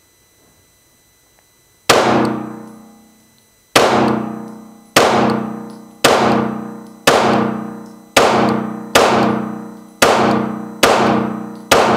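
Ten shots from a Stoeger STR9C 9mm compact pistol, the first about two seconds in and the rest roughly one a second. Each shot rings out with a long echoing decay off the concrete-block walls of an indoor range.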